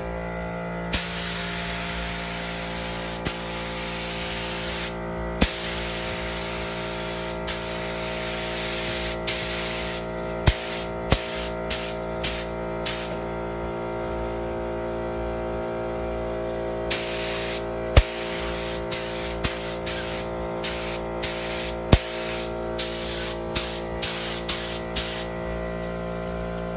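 Air-fed paint spray gun spraying gold paint: a loud compressed-air hiss held in long passes, then broken into many short trigger bursts near the end.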